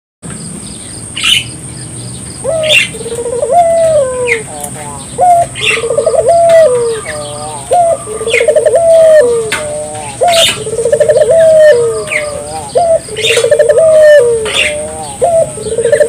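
Barbary dove (burung puter, the domestic ringneck dove) cooing over and over. There are about six coos, the first about two and a half seconds in, each opening with a quick stutter and ending in a long falling note. Short sharp high chirps fall between the coos, over a steady thin high-pitched whine.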